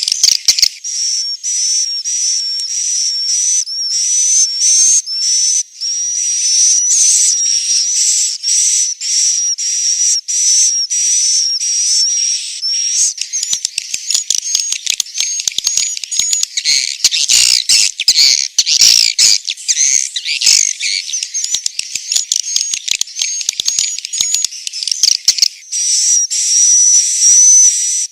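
Edible-nest swiftlet roosting call ('suara inap'): continuous high-pitched twittering made of rapid, dense chirps over a wavering whistle-like tone, busiest around the middle.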